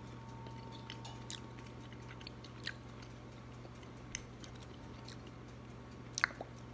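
A man chewing a bite of cooked mule deer kidney close to the microphone: soft, scattered wet mouth clicks and smacks, with a louder pair of clicks about six seconds in, over a steady low hum.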